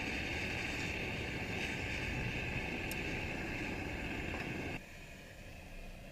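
Blacksmith's forge running: a steady rushing noise with a high hiss, which drops abruptly to a quieter steady rush about three-quarters of the way through.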